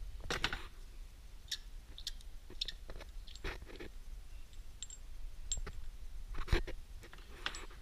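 Scattered metal clicks and knocks as the bolted valve cover plate is loosened and lifted off a John Beam R2020 pump head held in a vise, with a couple of short metallic rings and the loudest knock near the end.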